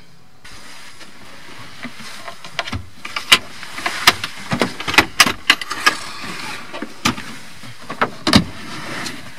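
Irregular clicks, knocks and clunks of a camper van's interior fittings being handled, a table top set aside and the cab seat worked, over a steady hiss; a heavier thud comes near the end.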